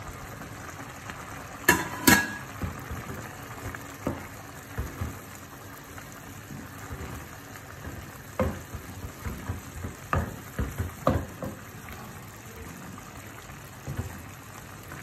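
Cream sauce simmering and bubbling in a pan. About two seconds in there are two sharp knocks as chicken pieces are tipped in from a plate, then a wooden spatula taps and scrapes the pan in scattered strokes while stirring.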